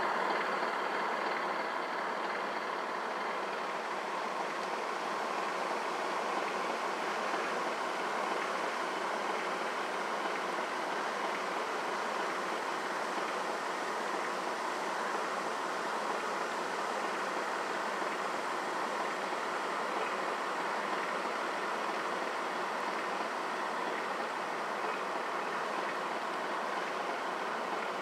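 Steady, unchanging mechanical whirring noise with faint steady tones running through it.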